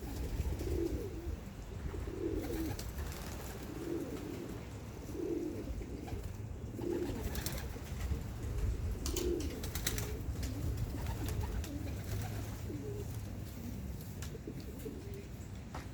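Homing pigeons cooing in a loft, a low coo repeating about every one and a half seconds, over a steady low wind rumble.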